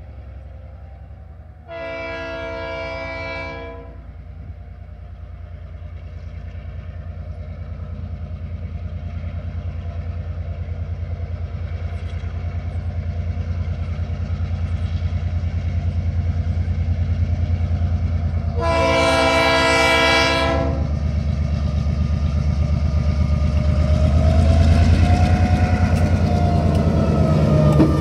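TasRail DQ-class diesel locomotive 2001 approaching at the head of a coal train: two long blasts of its multi-note air horn, the second about seventeen seconds after the first, over a diesel rumble that grows steadily louder as it nears. Near the end a wavering tone rises and falls over the engine and rail noise.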